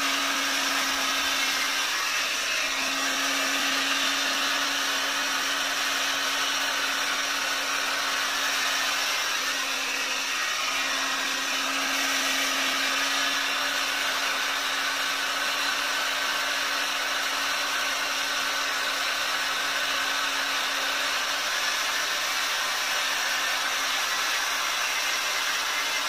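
Hot-air brush running steadily, blowing hot air through damp hair: an even rush of air over a steady motor hum.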